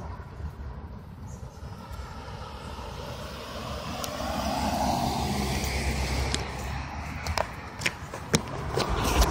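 A motor vehicle's rumble that swells to a peak about halfway through and eases off, as of a car passing on a nearby road. Near the end come several sharp clicks and knocks.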